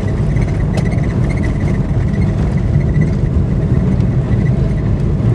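Steady engine and road rumble of a Peugeot 106 being driven, heard from inside the cabin: a deep, even drone with no change in pace.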